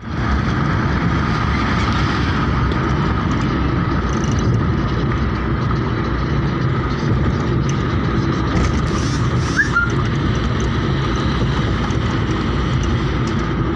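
Steady road and engine noise of a moving car, heard inside the cabin. A brief short chirp sounds about ten seconds in.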